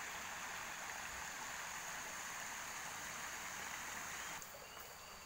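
Steady rushing of the waterfall's stream, with a faint steady high whine above it. The water noise drops away suddenly about four seconds in.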